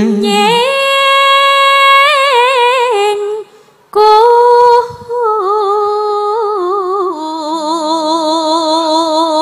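A woman singing a slow, melismatic Javanese vocal line (sindhenan), holding long notes with wide vibrato. The line breaks off about three and a half seconds in, resumes half a second later, and settles onto a lower held note near the end.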